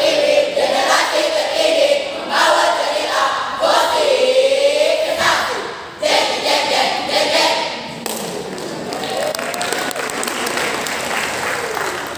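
A school choral speaking group chanting and half-singing in unison in Malay, a rhythmic mix of spoken verse and sung lines. The voices grow softer about eight seconds in.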